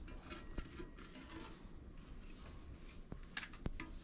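Quiet room with a few light clicks and knocks, a small cluster of them a little after three seconds in.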